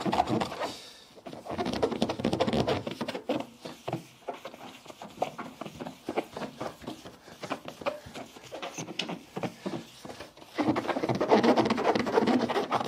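Wet sponge scrubbing back and forth over a plastic car headlight lens in soapy water, a rapid rubbing with squeaks, loudest in two spells about a second in and near the end.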